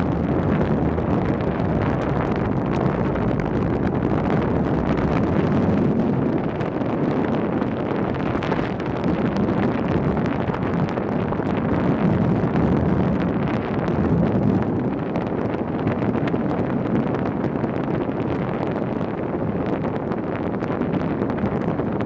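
Wind buffeting the microphone of a camera on a bicycle coasting fast down a paved hill: a loud, steady rushing noise.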